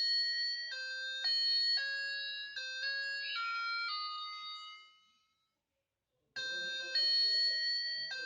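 Electronic melody chip of a battery-powered toy bike playing a simple beeping tune through its small speaker. The tune fades out about five seconds in, then starts again after about a second of silence.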